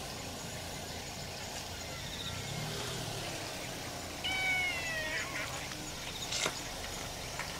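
Brown tabby kitten meowing once, a high call just under a second long that dips slightly in pitch toward its end. A short sharp click follows a couple of seconds later.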